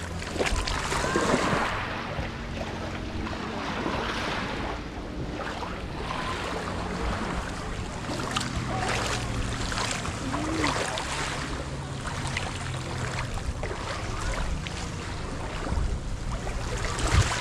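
Small waves lapping on a pebble-and-shell shore, with wind on the microphone and a low steady hum underneath.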